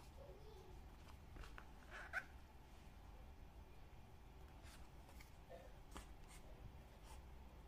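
Near-silent hand-stitching of leather: faint soft ticks and rubbing as the needle and thread are drawn through the wallet's leather, with a brief squeak about two seconds in.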